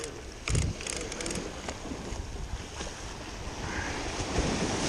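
Sea waves washing against jetty rocks, with wind on the microphone, swelling near the end. In the first second and a half a spinning reel is cranked as a fish is reeled in, giving a few quick clicks and a low knock.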